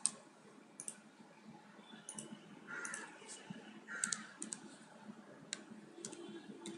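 Faint, irregular clicks of a computer mouse and keyboard: a single click, then a few scattered keystrokes as characters are typed.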